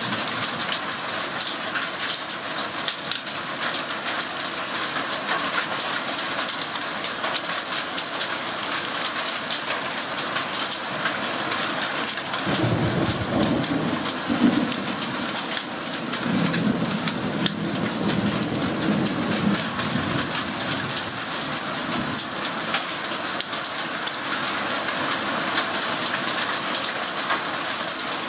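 Heavy rain from a hailstorm pouring down steadily, with thunder rumbling for several seconds around the middle.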